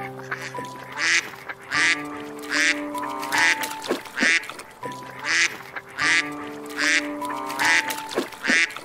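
Duck quacking in two runs of about four quacks each, spaced under a second apart, over soft background music with held notes.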